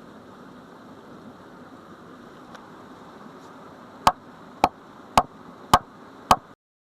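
Five sharp, evenly spaced knocks about half a second apart over a faint steady hiss, then the sound cuts off abruptly.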